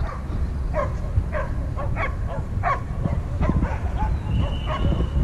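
Dogs barking in an off-leash dog park: a run of short barks, one every half second or so, over a steady low rumble.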